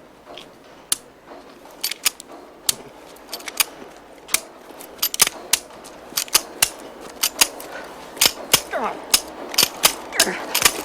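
Pistol dry-firing: sharp metallic clicks of the trigger and hammer, over and over at an uneven pace, as the gun misfires and will not shoot. A man's voice or breath is heard briefly near the end.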